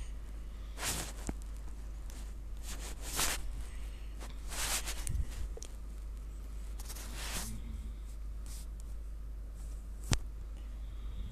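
A few short soft rustling swishes and one sharp click about ten seconds in, over a steady low hum.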